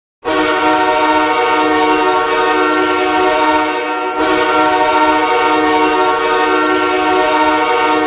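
Hockey goal horn sounding in long, steady blasts, with a brief break about four seconds in.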